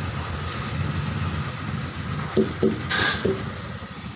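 A truck's diesel engine idling with a steady low rumble. About halfway through come several sharp knocks, each with a short ringing note, and a brief hiss. The knocks fit truck tyres being struck with a metal hook, a check whose sound shows whether a tyre is low on air.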